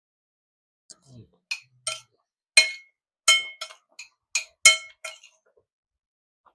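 Utensil clinking against a dish about ten times in a loose, uneven rhythm, each clink ringing briefly.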